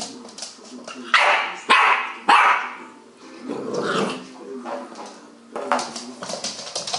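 Staffordshire bull terrier puppy barking three times in quick succession about a second in, with growling between the barks. A run of light clicks comes near the end.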